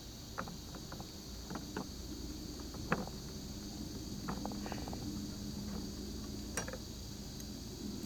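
Scattered light metallic clicks and clinks of an adjustable wrench and screwdriver working a nut and bolt on a PVC frame, the sharpest about three seconds in and again near the end. Behind them, insects chirr steadily and a low hum runs throughout.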